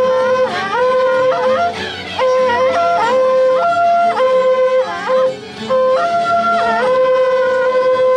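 Several wakrapukus, Andean trumpets built from joined cow-horn sections, blowing long held notes that step between a few pitches, the horns overlapping one another. The sound briefly drops twice.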